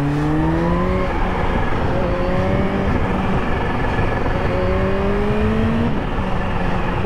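2019 Yamaha MT-07's 689 cc parallel-twin engine, with an aftermarket exhaust, pulling hard under acceleration. Its pitch rises, drops at a gear change about a second in, and rises again before another shift near the end, over wind rush on the helmet-camera microphone.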